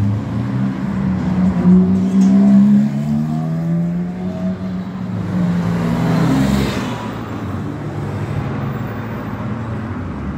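Sports cars driving slowly past one after another, their engine notes falling in pitch as each goes by. The loudest pass comes about two seconds in, and a Porsche 911's flat-six passes close about six seconds in.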